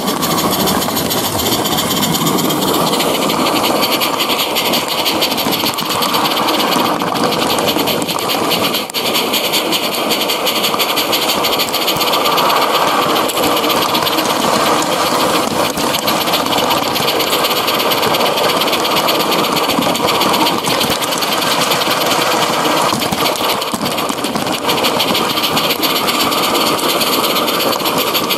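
Regner live-steam garden-railway model of the Harz locomotive 99 222 running under its own steam: a continuous fast chuffing and hissing with a mechanical rattle, with no electronic sound unit.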